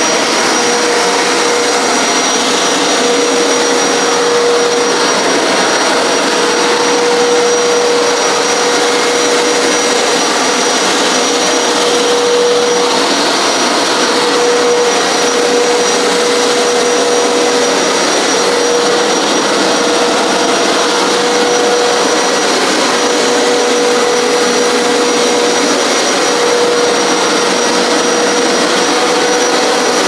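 Hoover PowerScrub XL Pet upright carpet cleaner running steadily as it scrubs and extracts carpet. Its motor holds one steady tone over a constant rushing suction noise.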